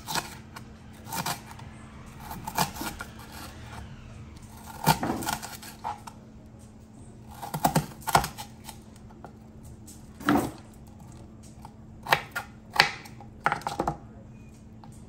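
Kitchen knife slicing an onion into strips on a plastic cutting board: irregular sharp knocks of the blade hitting the board, in small clusters every second or two.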